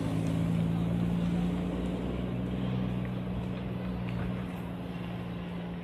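A vehicle engine running with a steady low hum over street noise, fading about four and a half seconds in.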